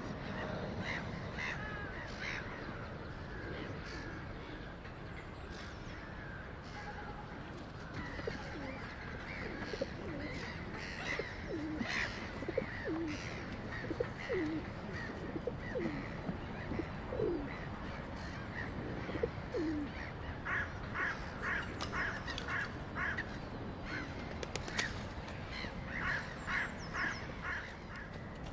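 Birds calling: quick series of short, harsh calls, several a second, mostly in the last third, and a run of lower calls that slide downward in pitch through the middle, over a steady low rumble.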